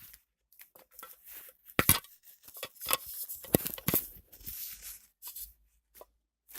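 Packaging being torn open and handled, irregular crackling and tearing with a few sharp clicks and snaps, the loudest about two seconds in and again around the middle.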